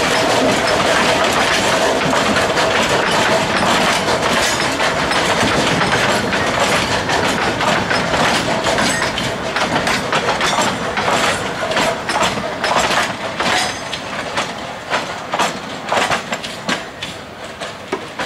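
Narrow-gauge forest railway train rolling on the track, its wheels clacking over the rail joints. The clacks space out and grow fainter through the second half as the train slows or moves away.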